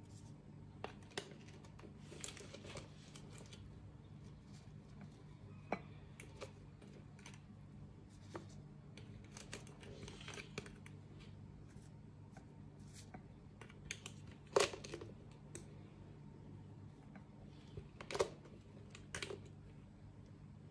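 Quiet handling sounds: scattered light clicks and taps as gummy candies are picked up and pressed onto shaved ice in a glass bowl, the two sharpest taps about 14 and 18 seconds in, over a steady low hum.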